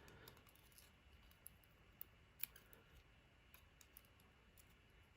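Faint, scattered sharp clicks of small metal lock parts being handled while a pin stack is loaded back into an American 1100 padlock's cylinder, the strongest about halfway through.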